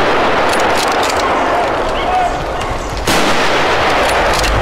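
Hunting rifle shot about three seconds in, a sudden sharp crack followed by a loud noisy wash lasting several seconds, with the same wash from an earlier shot running until then.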